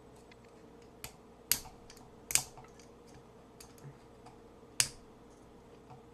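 Four or five sharp clicks at uneven intervals, with a few fainter ticks between them, from fingers working at the rusty, stuck second blade of a two-blade pocket knife. The blade will not open because of the rust.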